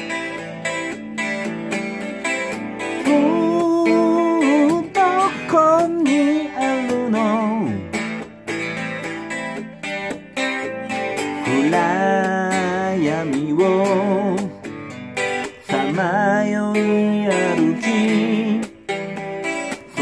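Semi-hollow-body electric guitar being strummed in chords, with a melody line over it that slides and wavers in pitch.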